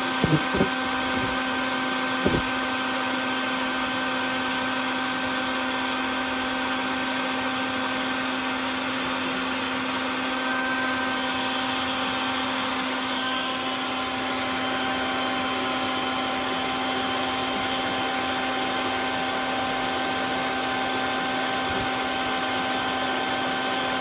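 Vacuum running steadily, its hose nozzle held at the entrance of a yellow jacket nest to suck up the wasps as they fly out: an even rushing hum with a steady motor whine. A few short clicks sound in the first couple of seconds.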